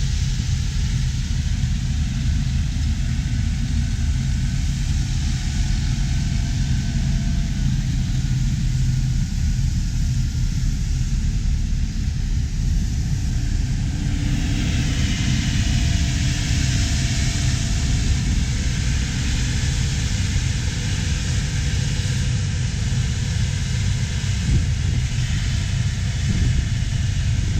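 Heavy harvest machinery running steadily with a deep, continuous rumble. A hiss over it grows louder about halfway through.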